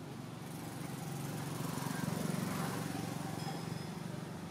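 A motor vehicle's engine passing by, its low hum swelling to a peak about halfway through and then fading away.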